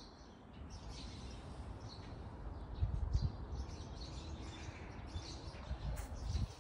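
Small birds chirping repeatedly in short high calls over a low rumbling noise, which is loudest about three seconds in.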